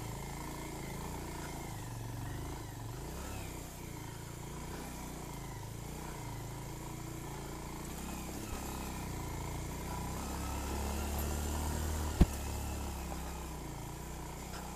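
Motorcycle engine running at low revs, its note wavering slightly, with one sharp knock late on.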